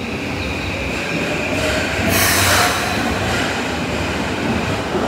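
Subway train running alongside the platform, its wheels and motors making a steady whine, with a brief loud hiss about two seconds in.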